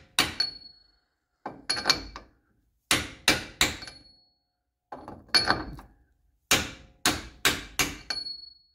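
Hammer striking a 2-inch socket used as a seal driver, tapping a new inner axle seal into a Mopar 8 3/4 rear axle housing. The sharp strikes come in quick bunches of three to five, with a short metallic ring after several of them.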